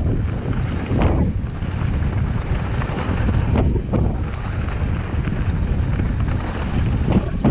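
Heavy wind noise buffeting the camera microphone as a Cube Stereo mountain bike speeds down a loose gravel trail, mixed with tyre and frame rattle over the stones and a few sharp knocks from bumps, about a second in, around the middle and near the end.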